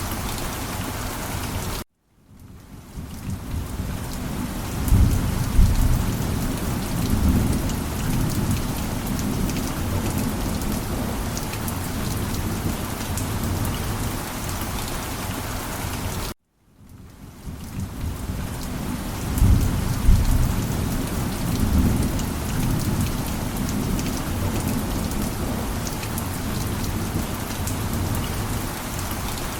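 Steady heavy rain with thunder rumbling twice, about 5 and 20 seconds in. The sound cuts out suddenly twice and swells back in, the same short stretch of rain and thunder repeating.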